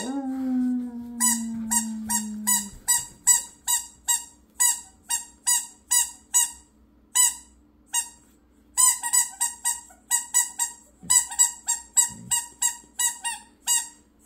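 Squeaky dog toy squeezed over and over in the hands, giving a high squeak about two to three times a second, then faster, about four a second, after a short pause. It opens with one long, falling howl-like note.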